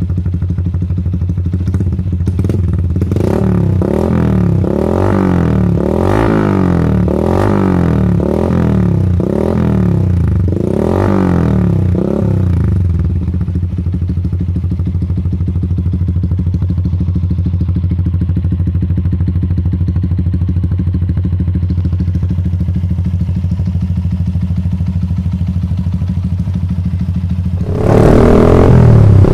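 Yamaha MX King 150's single-cylinder four-stroke engine through a ROB 1 aftermarket exhaust, idling and then blipped about eight times in quick succession before settling back to a steady idle. Near the end the sound turns abruptly louder.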